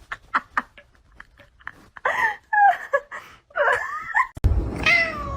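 Short whining cries from a pet, with scattered light clicks, then music starts about four seconds in with a cat meowing.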